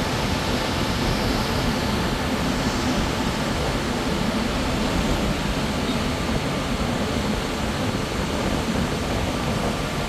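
Fast river water rushing steadily through rapids below a waterfall, an even noise without breaks.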